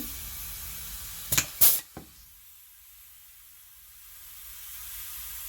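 Pneumatic air joggler/hole-punch tool being worked: a light hiss of air, then two short, sharp blasts of air about a second and a half in, the louder second. The hiss drops away about two seconds in.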